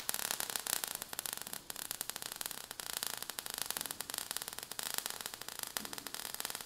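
Faint crackling static with a steady hiss, made of many small irregular clicks.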